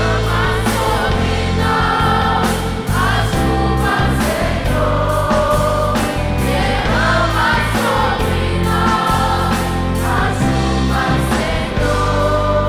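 Adolescent church choir singing a gospel song in Portuguese, with instrumental accompaniment holding sustained low bass notes underneath.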